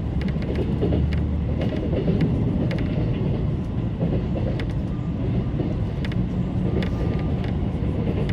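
Freight train passing at close range: a steady rumble of wheels on rail, with short, sharp clicks as the wagons' wheels cross rail joints.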